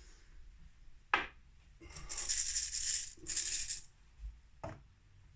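Spray bottle misting water onto whole coffee beans before grinding: two short hissing spritzes, with a click before and after.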